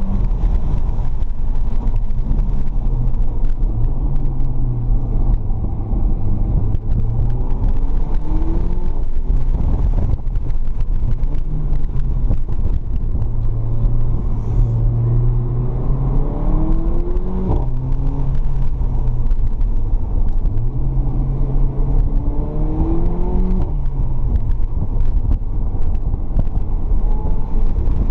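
Mercedes-AMG CLA45's turbocharged 2.0-litre four-cylinder engine, heard from inside the cabin, pulling hard with its pitch climbing under acceleration and dropping back abruptly three times. Under it runs a heavy, steady rumble of road and wind noise.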